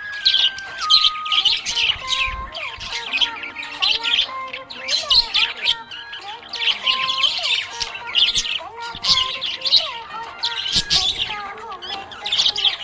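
Budgerigars chirping and warbling in a dense, continuous chatter of quick high notes.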